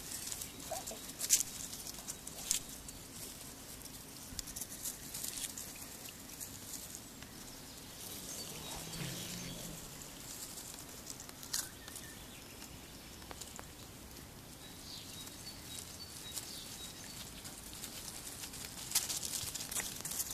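Puppies' paws rustling through dry fallen leaves and grass: a soft patter of leaf rustle, with a few sharp crackles in the first few seconds and again about halfway, and busier rustling near the end.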